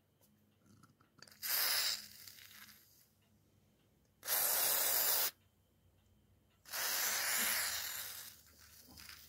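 Aerosol can of foaming paint stripper sprayed through its straw nozzle in three hissing bursts onto metal hinges in a steel dish. The first burst is short, the second about a second long, and the last is the longest and trails off.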